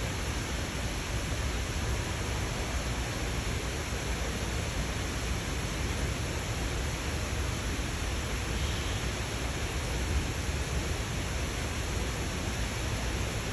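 Steady, even rushing noise with no animal calls or other distinct sounds.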